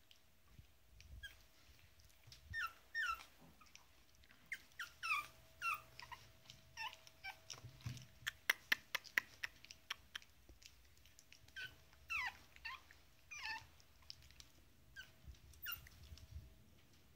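Pug puppy whimpering in many short, high squeaks that fall in pitch while it feeds from a milk bottle. A quick run of clicks from its mouth working the bottle's teat comes about halfway through.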